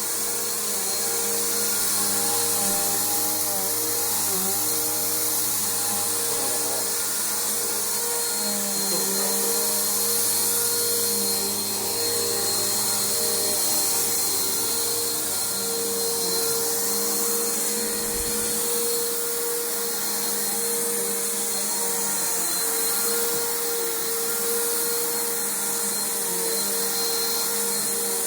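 Bissell PowerForce Bagged upright vacuum cleaner running steadily while vacuuming carpet: a steady motor hum and a thin high whine over a rush of air. One brief low bump about two-thirds of the way through.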